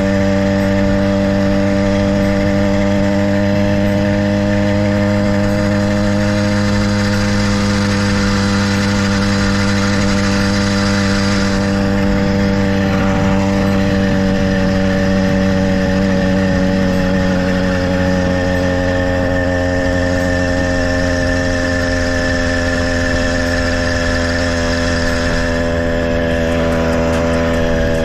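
Motorized bicycle's small gas engine running steadily under way, holding a fairly even pitch that eases slightly about two-thirds of the way through. The engine is still being broken in.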